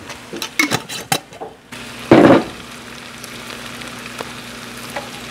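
Diced onion, carrots and potatoes sautéing in butter in a skillet, giving a steady sizzle. A few sharp clicks come in the first couple of seconds, and a loud brief rush of noise about two seconds in.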